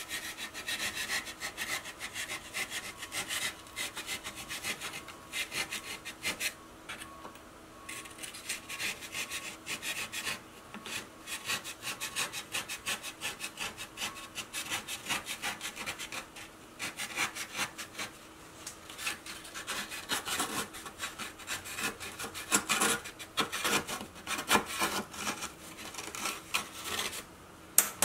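X-Acto knife blade scraping and cutting through the soft refractory body of a microwave kiln, in many quick, irregular scraping strokes.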